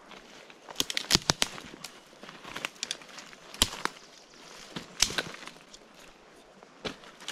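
Campfire crackling, with sharp irregular pops and snaps of burning wood, several in quick succession about a second in.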